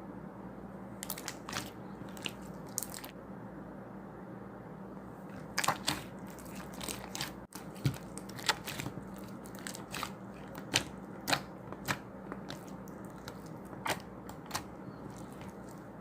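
Crunchy food being bitten and chewed, in sharp crunches at irregular intervals, over a steady low hum.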